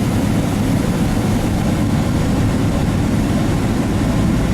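Pickup truck on the move, a steady low engine and road rumble heard from inside the cab.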